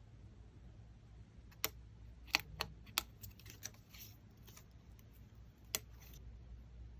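A quick, irregular run of light clicks and clinks, about a dozen over four seconds, as small hard pieces are handled and tapped together, over a low steady hum.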